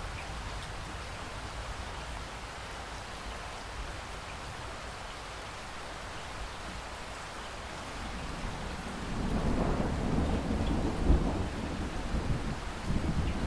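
Steady rain hissing, with a low thunder rumble building about two-thirds of the way in, peaking and then swelling again near the end.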